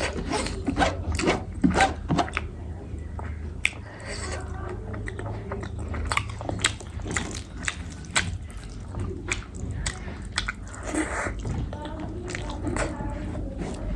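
Close-miked eating sounds of a person chewing a meal of boiled eggs and rice, with many small irregular mouth clicks.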